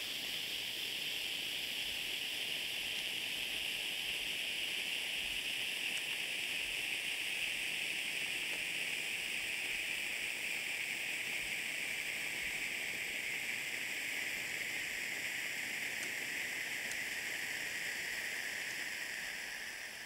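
Two Bengal flare torches burning with a steady hiss that slowly sinks in pitch, then dies away near the end as the flares burn out.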